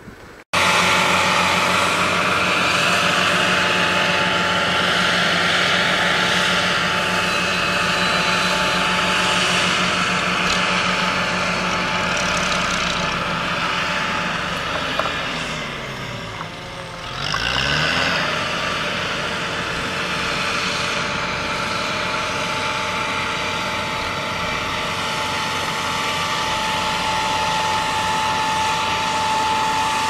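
Heavy diesel construction vehicles, a dump truck and a front-loader tractor, running steadily. About halfway through, the engine note drops and climbs again as the truck works.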